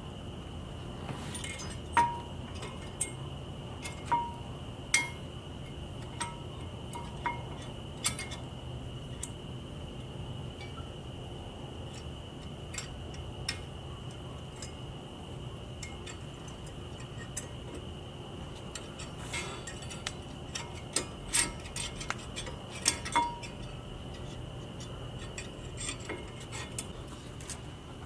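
Scattered metallic clinks and taps of hand tools and brake parts being handled, a few ringing briefly, with a denser run of clinks about twenty seconds in. A steady high-pitched tone sounds underneath.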